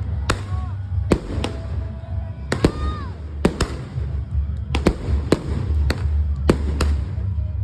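Fireworks display: a run of about a dozen sharp bangs at uneven intervals, roughly one every half second to second, over a steady low rumble.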